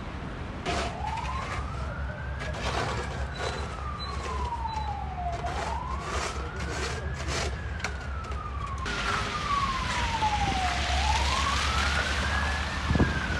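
Emergency vehicle siren in a slow wail, rising for about two seconds and falling for about two and a half, repeating about every four and a half seconds. Scrapes of snow shovels on the pavement come through in the first half, over steady traffic noise.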